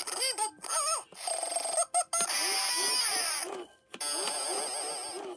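Tinny electronic tune played by a battery-powered toy through its small speaker, in several short clips cut off by brief gaps, as if its buttons were pressed one after another.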